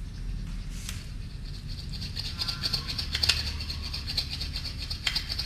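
A recorded sound sample played back from a computer: a rapid, high-pitched flickering sound starting about two seconds in, with a few short clicks.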